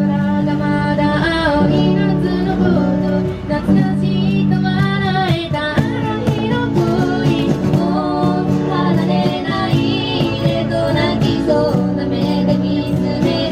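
Music: a woman's voice singing a melody over guitar accompaniment.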